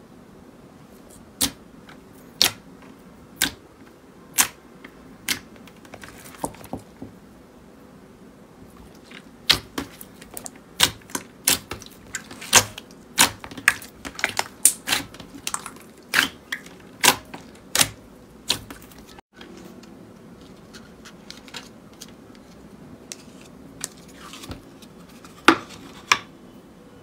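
Clear slime being poked and squeezed by hand, giving sharp clicks and pops. They come about once a second at first, then in a quicker uneven run in the middle, with a few more near the end.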